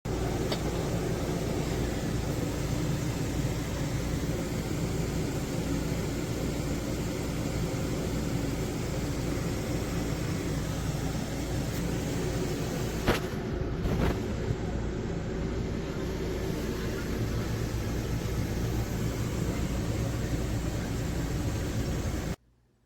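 Water boiling hard in a pot on an electric burner, a steady rushing noise. There are two short sharp clicks about halfway through, and the noise cuts off abruptly near the end.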